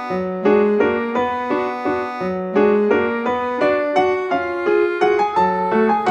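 Background piano music: a light tune of short notes in a steady rhythm.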